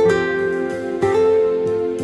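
Instrumental background music, with held notes that change about once a second.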